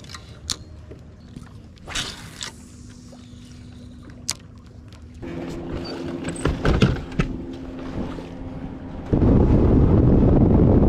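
Bass boat's motor running: about five seconds in, a steady hum begins. Near the end a much louder, even rush of noise sets in. Before the hum, scattered light clicks and knocks.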